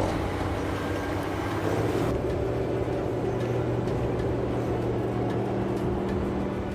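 A large engine running steadily at a constant speed, a low even hum. About two seconds in its note fills out slightly.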